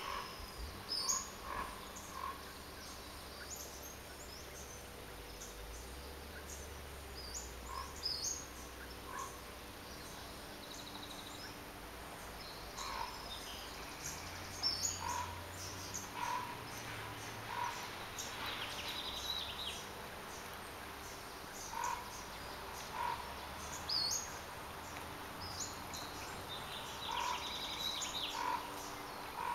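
Lakeside chorus of frogs croaking in short notes, often in pairs, every second or two, mixed with songbirds chirping high and quick. A faint low rumble runs underneath.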